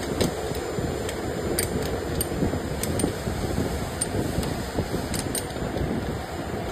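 Steady mechanical hum with scattered light, sharp clicks and ticks.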